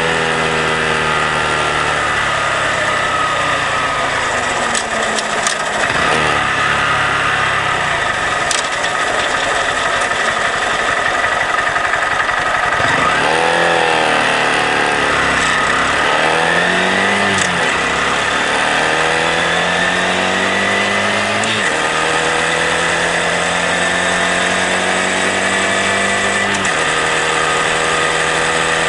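Honda Grom's 125 cc single-cylinder engine running under way at a steady cruise. Around the middle its note falls and rises again several times as the bike slows and picks up through the gears, and it steps up again a little before the end. Steady wind noise runs under the engine.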